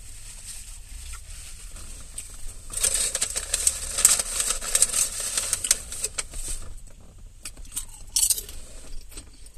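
Crisp crackling and rustling of a green salad of romaine lettuce and kale being chewed and handled in its paper bowl close to the microphone, loudest for about four seconds in the middle, with scattered clicks after.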